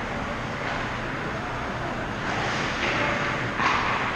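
Ice hockey skate blades scraping and shuffling on the ice in several short swells of hiss, over a steady low hum in the rink.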